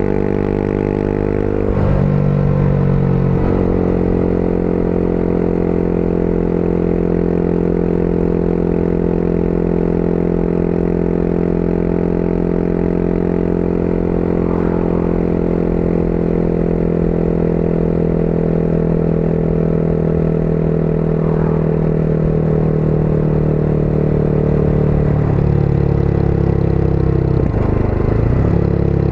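Motorcycle engine heard from the rider's seat while riding along. The engine note shifts about two seconds in, holds a steady cruise through the middle, then changes again near the end.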